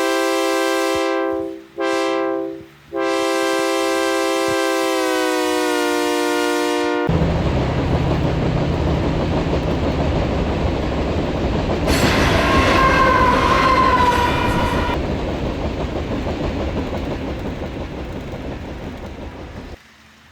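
Diesel freight locomotive air horn sounding a long blast, a short one and a long one, its pitch sagging as it passes. It is followed by the rumble and clatter of the freight train rolling by, with a brief wheel squeal, fading away and cutting off near the end.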